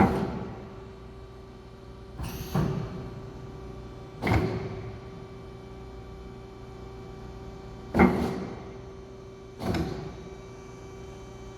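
Amada HA400W band saw running with a steady machine hum, punctuated by about five sharp mechanical clunks at uneven intervals, one of them a quick double knock.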